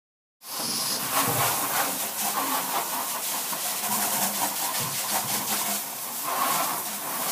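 Grapes being pounded with a stick to make must: wet squashing and sloshing with irregular knocks over a steady hiss, starting abruptly about half a second in.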